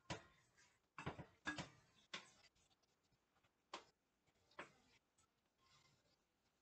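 Faint, irregular clicks and taps of cooking utensils and cookware at a stove, about half a dozen, mostly in the first half.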